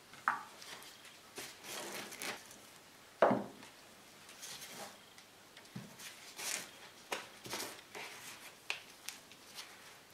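Gloved hands handling sprouted onions and a plastic plant pot of soil: irregular rustling and light knocks, with a sharp knock at the start and a louder one about three seconds in.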